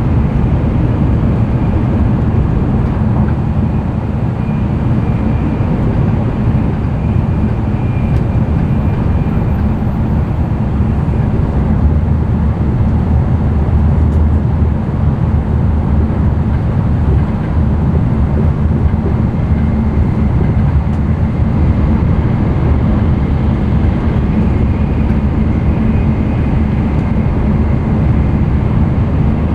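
N700-series Shinkansen running at speed, heard from inside the passenger cabin: a steady, loud rumble of wheels on rail and running noise, with a faint high tone drifting in and out.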